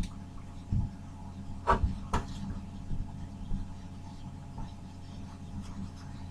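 A few short knocks, the loudest two together about two seconds in, over a steady low hum.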